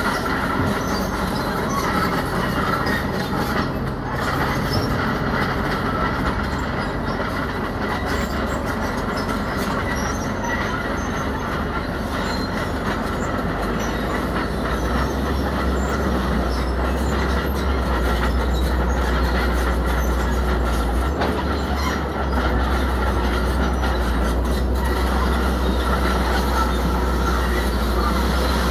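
A tracked earthmoving machine working: its diesel engine runs steadily while its steel crawler tracks squeal and clank. The engine's low rumble grows louder about halfway through, as under heavier load.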